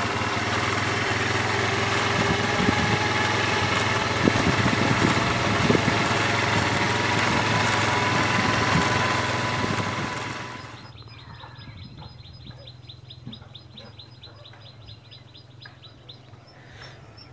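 Motorbike engine running under heavy wind noise on the microphone while riding. About ten seconds in this drops away sharply, leaving a much quieter, rapid and even chirping.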